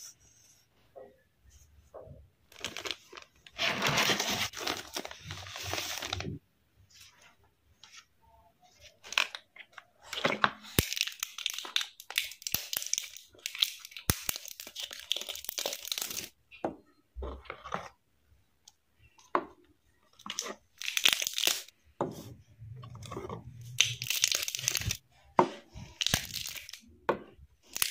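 Thin plastic film crinkling and tearing in the hands in several bursts of a few seconds each, with a few sharp clicks, as the clear plastic seals are peeled off small plastic paint pots.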